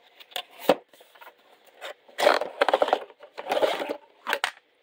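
Cardboard box being opened and the Gearwrench plastic plier rack being slid and scraped out of it, with a sharp click under a second in and two longer stretches of scraping in the middle.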